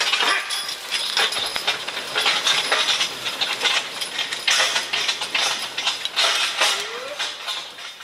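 A draft-horse team skidding a large log on a wheeled logging cart through snow and mud: irregular crunching and scraping with chain and harness clinking. A short rising call comes near the end.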